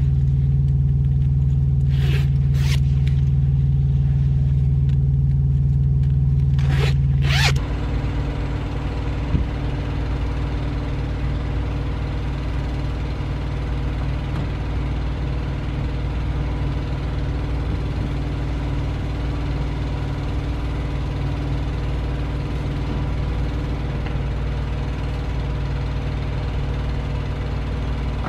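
A jacket zipper pulled in short strokes, twice about two seconds in and twice about seven seconds in, over a loud steady low hum. Then the hum drops and a semi truck's diesel engine idles steadily.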